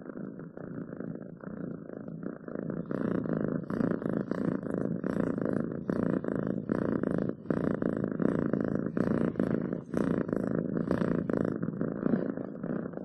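Domestic cat purring close to the microphone, a steady rumble pulsing in an even rhythm. It grows louder about three seconds in and eases a little near the end.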